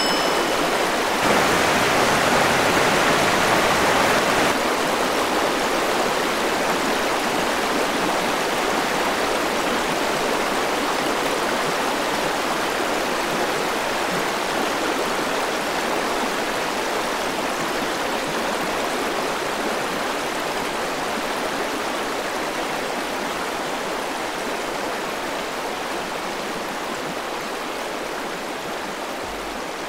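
Running river water: a steady rush of shallow water over stones and small falls, slowly growing quieter.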